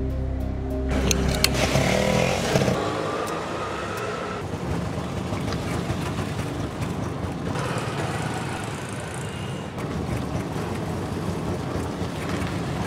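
Auto-rickshaw engine running with street traffic noise around it, heard from inside the cab as it rides along.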